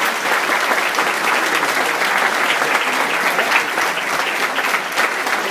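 Audience applauding steadily, a dense clatter of many hands clapping, in response to a guest being announced to the stage.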